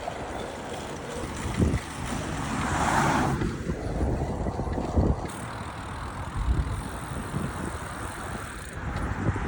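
Wind buffeting the microphone with low rumbling thumps, over road traffic noise; a vehicle swells past about three seconds in.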